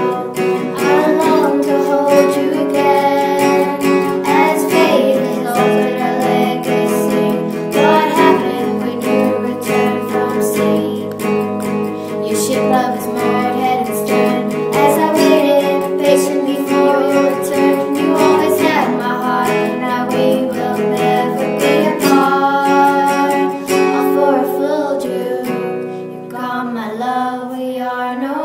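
A song with acoustic guitar accompaniment and a singing voice.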